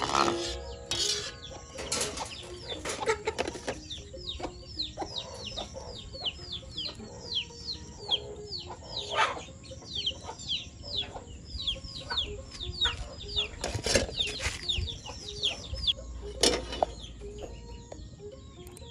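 Birds calling: a long run of quick, repeated high notes that slide downward, about two or three a second, with a few sharp knocks scattered through.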